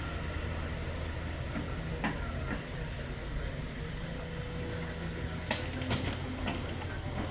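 Heavy diesel engine running steadily with a low hum, with a sharp knock about two seconds in and two more about five and a half and six seconds in.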